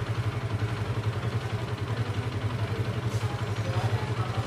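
Kawasaki KLX 150S's carbureted, air-cooled single-cylinder engine idling steadily, its idle freshly set with the new idle-adjust knob.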